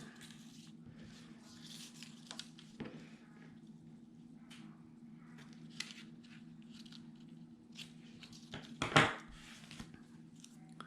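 Paper strip being trimmed and handled: faint snips, clicks and rustles of paper over a steady low hum, with one louder rustle about nine seconds in.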